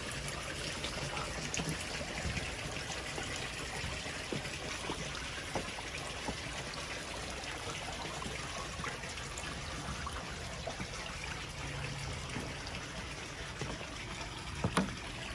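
Water trickling steadily at a koi pond, with a few light knocks and one sharper knock near the end.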